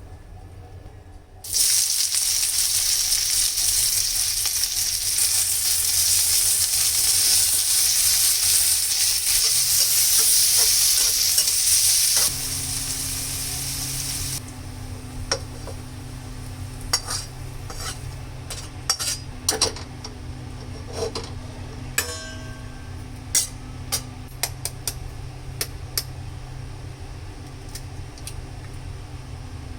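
Food sizzling loudly in a hot frying pan, starting suddenly about a second and a half in and dropping away sharply around twelve seconds. After that, scattered clicks and scrapes of a utensil stirring against the pan, over a steady low hum.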